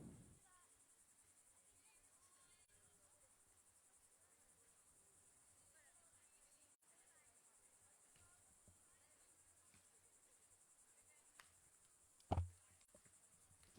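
Near silence: a faint, steady high-pitched hiss, with a single thump about twelve seconds in.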